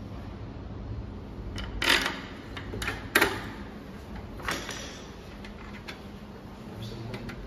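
Hands handling a wall printer's aluminium frame and housing: a few sharp knocks and clacks, the loudest about two and three seconds in, and a softer one about halfway through.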